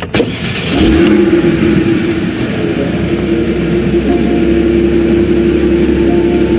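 2014 Porsche 981 Boxster's 2.7-litre flat-six being started with the ignition key: a click, then the engine catches less than a second in with a loud burst and settles into a steady idle.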